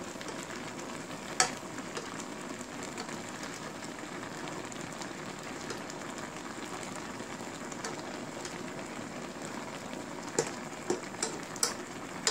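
Braised hairtail and radish simmering in a pan, a steady bubbling hiss, while a spoon scoops the broth over the top. A sharp clink of the spoon on the pan about a second in, and several more clinks near the end.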